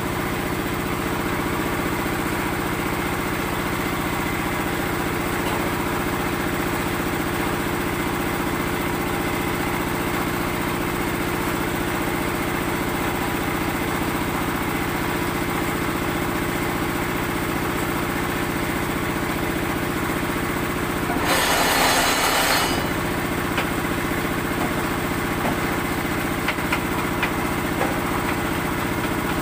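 Engine of a concrete-block (batako) making machine running steadily. About two-thirds of the way in there is a louder harsh burst lasting about a second and a half, and a few light knocks near the end.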